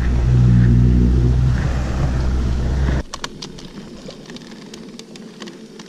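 Small fishing boat's motor running with a steady hum, then stopping abruptly about three seconds in. Scattered knocks and clicks follow.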